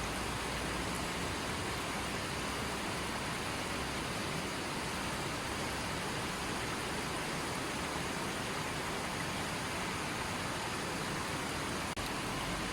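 A stream of water flowing steadily, an even rushing sound, with a momentary drop-out near the end.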